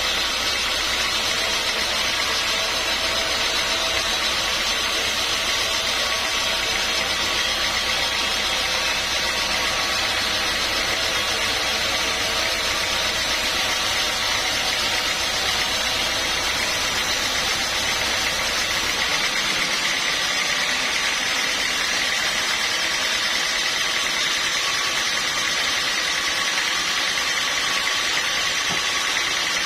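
Sawmill machinery running steadily, with constant high tones over a noisy din. A low hum underneath cuts off about two-thirds of the way through while the rest keeps running.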